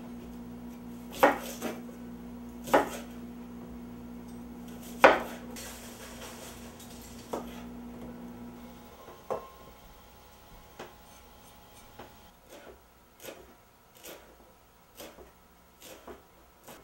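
Chef's knife chopping on a cutting board: a few loud, sharp knocks in the first five seconds, then lighter, steady chops about two a second.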